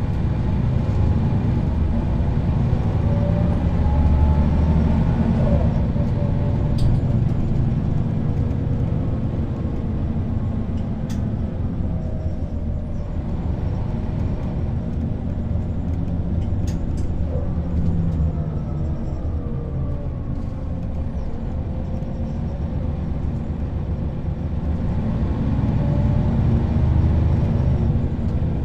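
Interior sound of a Neoplan N 4016 bus under way: a steady low drivetrain rumble with a whine from its ZF automatic gearbox that rises and falls in pitch twice as the bus speeds up and eases off. A few short rattles and clicks come through now and then.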